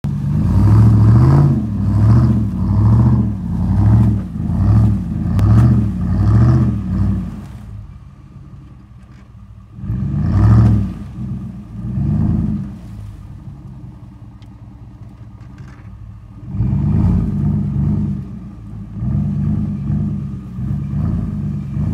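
Ram 1500 pickup's V8 engine revved in a quick series of blips, about one a second, then settling to an idle broken by two single revs. Near the end it revs again in longer, uneven swells.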